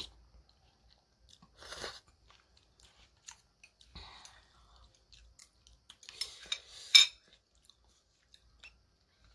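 Close-up eating sounds of spicy noodle soup: chewing and slurping, with small clicks of a plastic spoon and chopsticks against the bowl. The loudest slurp comes about seven seconds in.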